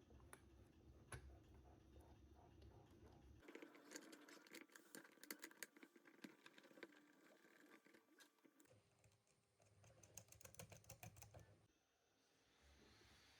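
Faint, irregular clicking and tapping of small hard parts being handled, typical of screws, nuts and printed plastic parts being fitted by hand. The character of the sound changes abruptly a few times.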